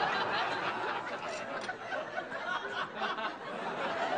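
Audience laughing, a spread of scattered chuckles over a general murmur, easing off.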